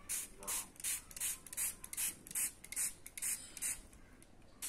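Small finger-pump mist bottle spraying water in quick repeated pumps, short hisses about two or three a second, stopping about four seconds in. The water wets the fresh watercolour so the paint runs down the tilted paper.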